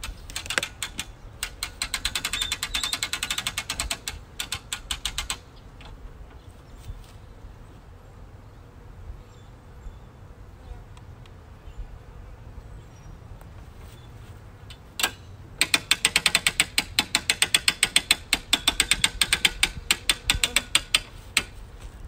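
Hand-cranked winch of a beehive lift ratcheting: two runs of rapid, even clicking as the crank is turned, one near the start and a louder one about two-thirds of the way in.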